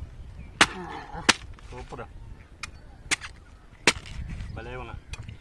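Hard chops of a heavy knife blade cutting into palmyra palm fruits, four sharp strikes spaced irregularly a second or so apart. A short voice is heard near the end.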